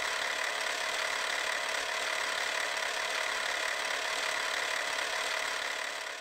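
Film projector running sound effect: a steady whir and hiss that starts abruptly and fades out near the end.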